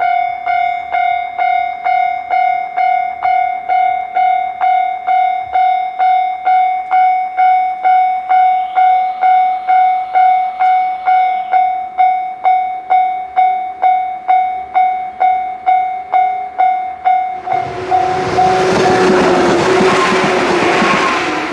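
Japanese railway level-crossing warning bell ringing at a steady beat of about two strikes a second. About 17 seconds in, a passing train's loud rushing noise swells over it for several seconds while the bell keeps ringing.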